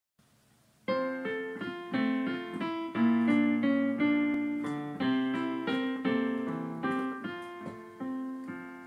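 Piano playing the hymn's introduction: a slow melody in chords, each note struck and left to fade. It starts about a second in and dies away near the end.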